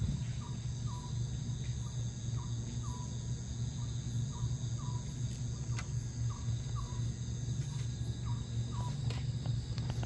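Night insect chorus: a steady high-pitched ringing trill from crickets, with a short falling chirp repeating about once a second, over a low steady hum.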